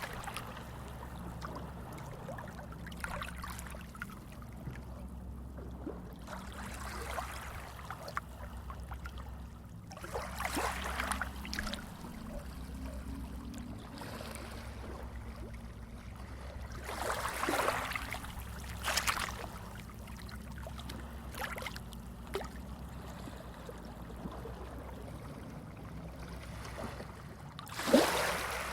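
Small sea waves lapping and splashing, with a louder wash every several seconds and the biggest one near the end, over a low steady rumble.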